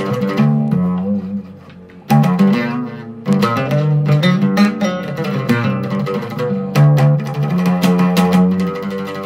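Oud plucked with a pick, playing a melody in quick runs of notes. The playing thins to a quiet ringing tone about a second in, then comes back with sharp strokes about two seconds in.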